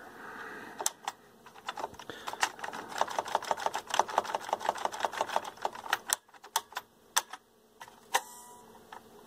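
Front-panel push-button and rotary switches of a Denon PMA-770 integrated amplifier clicking as they are worked over and over, a rapid run of clicks in the middle and a few single clicks near the end. The switches are being exercised to work freshly sprayed contact cleaner into their dirty contacts.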